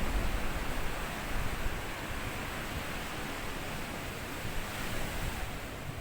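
Small waves washing onto a sandy beach: a steady, rushing surf noise.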